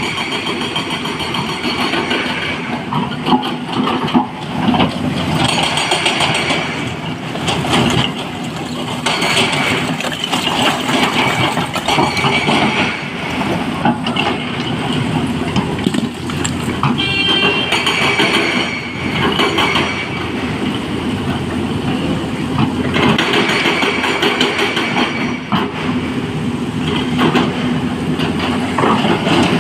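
Heavy diesel excavator running under load, with a continuous clatter and knocking of rock and metal typical of loading a dump truck. There is a short high squeal a little past halfway.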